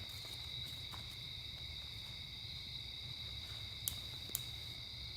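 Crickets chirring steadily in a high, even drone over a low outdoor rumble, with two short sharp clicks near the end.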